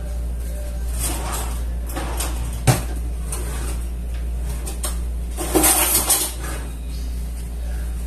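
Kitchenware being handled: a single sharp knock, then a short run of clattering knocks past the middle, over a steady low hum.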